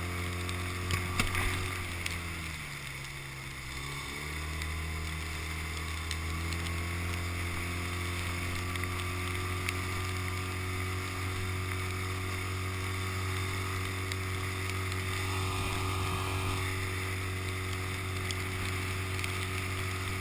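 Small outboard motor running steadily as it pushes an inflatable dinghy across the water. Between about two and a half and four seconds in, its pitch drops as the engine slows, then rises back to its running speed.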